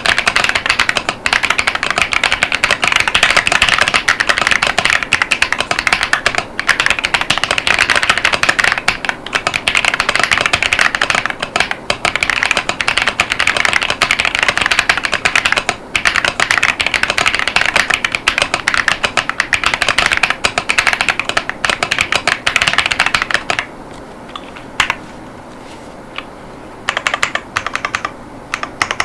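Fast, continuous typing on an AJAZZ AK980 mechanical keyboard with KiiBoom Taro Cream tactile switches and PBT Cherry-profile keycaps: a dense stream of keystroke clacks. About three-quarters of the way through the typing stops for a few seconds, leaving only a couple of single keystrokes, then picks up again.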